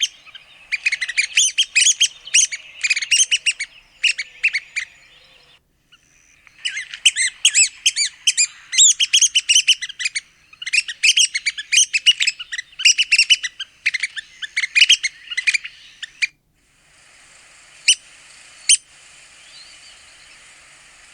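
Red-cockaded woodpeckers giving rapid, squeaky chattering calls in dense runs, with a short pause about six seconds in; the chatter stops about two-thirds of the way through, leaving a faint steady hiss and two single sharp calls.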